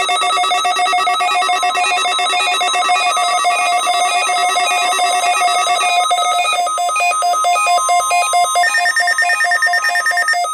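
Zoneguard weather alert radio sounding its alarm: a loud, rapid electronic trill of several tones that changes pattern partway through. It is set off by a NOAA Weather Radio required weekly test.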